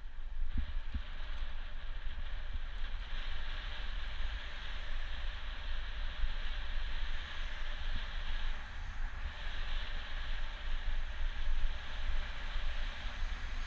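Steady rushing wind noise on a bike-mounted camera's microphone while cycling, over a low rumble of tyres on the road.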